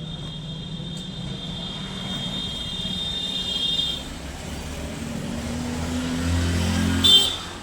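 Passing road traffic: a low rumble that builds up, with a high tone held for the first few seconds and a short loud high tone about seven seconds in.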